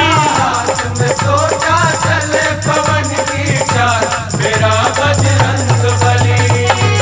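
Instrumental interlude of a Hindi devotional bhajan: a shaker-type rattle and percussion keep a dense rhythm under a melodic lead line that bends and glides in pitch, over a steady bass.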